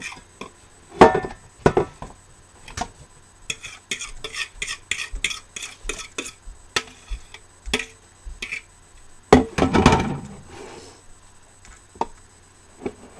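A kitchen utensil clinking, tapping and scraping against a mixing bowl and a metal loaf pan as meatloaf mixture is spooned out into the pan: a run of quick clicks, with louder knocks about a second in and again near the end.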